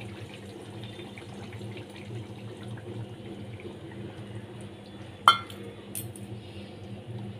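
Ground-spice water (cumin, coriander, turmeric, chilli) being poured from a bowl into hot oil around frying hilsa steaks in a kadai, the liquid bubbling in the pan. A sharp clink about five seconds in.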